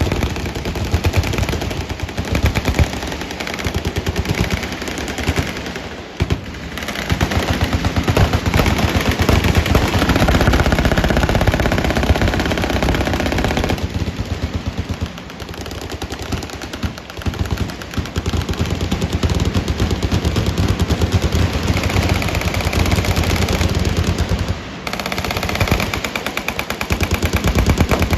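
Automatic gunfire from several machine guns firing at once, a dense run of rapid overlapping shots that eases briefly a few times before picking up again.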